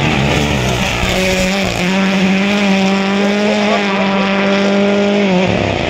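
Rally car's engine pulling hard as it comes along the gravel stage: it climbs in pitch over the first two seconds, holds one high, steady note for a few seconds, then falls away sharply near the end.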